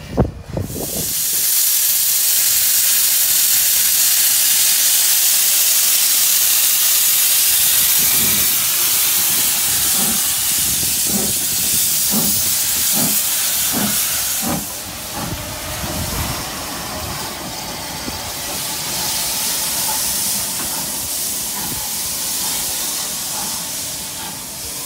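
Steam locomotive venting steam with a loud, steady hiss that eases off after about fourteen seconds. Underneath it, from about eight to sixteen seconds in, comes a slow run of low thuds, roughly one a second.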